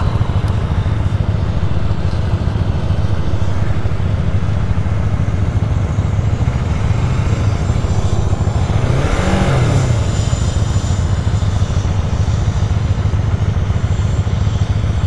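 Motorcycle running on the road, its engine rumble mixed with steady wind noise. About nine seconds in, an engine note rises and then falls.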